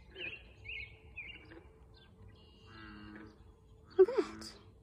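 A bird calling over and over with short down-slurred chirps, about two a second, over a faint steady hum. About four seconds in, a brief loud sound swoops up and down in pitch.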